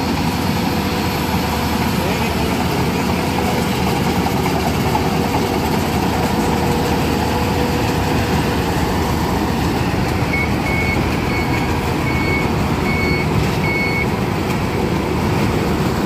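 Fieldking crawler combine harvester running steadily while harvesting rice, a constant engine and machinery drone. About ten seconds in, a series of about seven short, high beeps sounds over some four seconds, like a reversing alarm.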